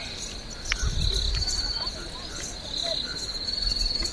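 Insects trilling, a high-pitched steady buzz that comes and goes in stretches of a second or so, with a brief low thump about a second in.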